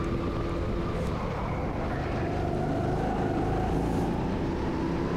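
Go-kart engine running steadily at speed, heard from the driver's seat in an indoor kart hall.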